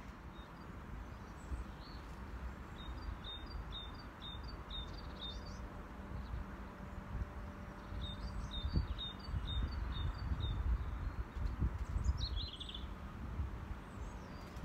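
A small songbird singing two quick phrases of repeated high notes, then a single short call sliding downward near the end, over a steady low rumble.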